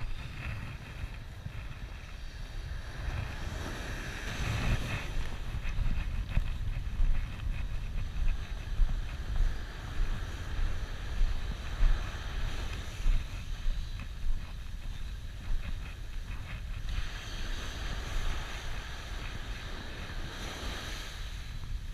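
Wind buffeting the camera microphone with surf breaking and washing up the beach. The wash swells about four seconds in and again in the last few seconds.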